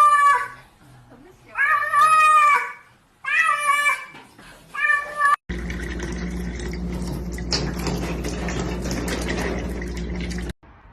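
A cat meowing four times, long drawn-out calls that bend in pitch. About five and a half seconds in it cuts off suddenly and a steady rushing noise with a low hum takes over until near the end.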